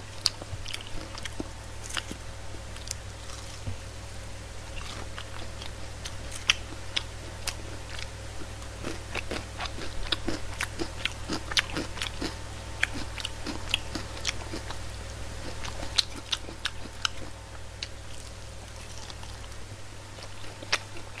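Close-miked chewing and biting of crispy fried chicken with an onion topping: irregular crunchy clicks and mouth sounds, busiest in the middle stretch, over a steady low hum.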